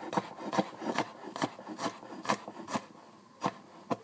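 Cleaver chopping garlic on a wooden cutting board: about ten sharp knocks of the blade hitting the board, two to three a second in an uneven rhythm.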